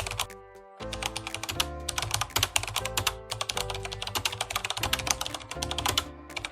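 Rapid computer keyboard typing, many keystrokes a second with a brief pause just under a second in, over background music with held notes.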